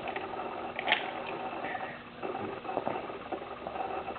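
Switchblade knives being handled: one sharp metallic click about a second in, with a few lighter clicks, over a steady background hum.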